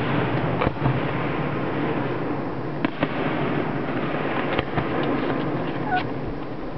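Aerial fireworks bursting: several sharp bangs and pops scattered through a continuous wash of noise from the display.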